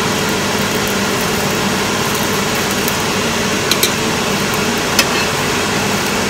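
A dosa frying on an oiled cast-iron griddle over a gas burner: a steady sizzle with a low hum under it. A metal spatula clicks lightly against the griddle a couple of times around the middle and once more about five seconds in.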